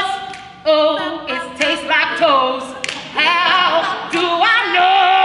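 A few voices singing a cappella, holding wavering notes, with sharp percussive hits between phrases.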